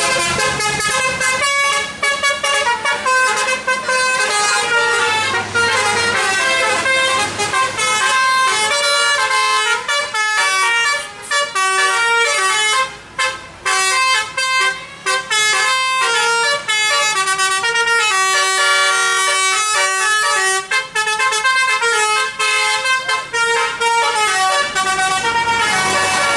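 Bus telolet horn, a multi-note musical air horn, playing a fast melody of stepped notes, with a few short breaks about halfway through.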